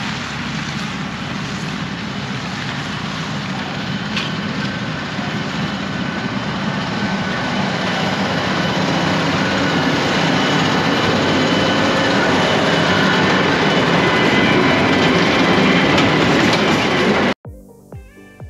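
New Holland T7 315 tractor running under load as it pulls a New Holland BigBaler 1290 HD large square baler through heavy, very wet grass, growing louder as it comes closer. It cuts off suddenly about a second before the end, where music takes over.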